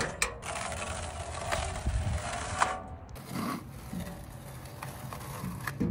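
A blower running with a steady rushing noise, which drops away about three seconds in, leaving quieter handling noise.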